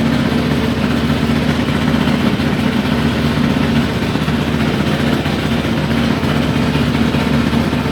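Haier i-Pro Series 7 HW100-B14979S washing machine on a 1400 rpm spin, with a loud, steady clattering from deep inside the machine: a noise the owner suspects is premature drum bearing failure.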